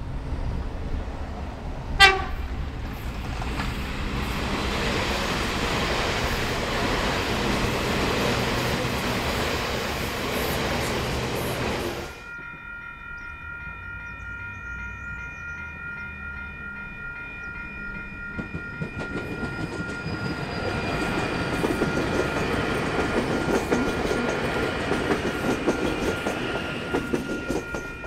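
A CAF-built AM-class electric multiple unit passes with a short horn toot about two seconds in, then the rumble and clatter of its wheels on the rails. About twelve seconds in the sound cuts to a level crossing's warning bells ringing steadily, while another train draws closer and grows louder.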